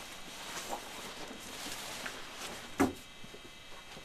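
Light handling noises of a fold-out camper trailer being set up: faint rustles and small clicks, with one sharp knock about three quarters of the way through.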